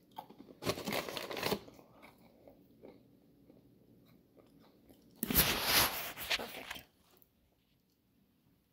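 Crunchy bite into a crisp snack, about a second in. Near the end comes a longer, louder burst of rustling and knocking as the camera is picked up and moved.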